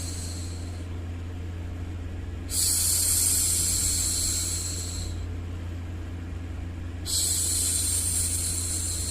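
A woman's long "shhh" hushing sound, repeated: one shush trails off at the start, and fresh ones begin about two and a half seconds in and again about seven seconds in. Each starts suddenly and fades over a couple of seconds. A steady low hum of white noise runs underneath.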